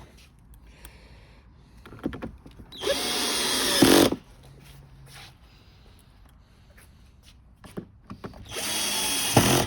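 Power drill running in two short bursts of about a second each, a few seconds apart; the first sags in pitch near its end as it comes under load.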